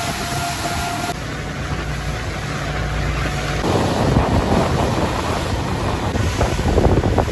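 Boat under way, its engine a low steady hum, with wind buffeting the microphone. A steady high tone cuts off about a second in, and the gusty wind and water noise grows rougher about halfway through.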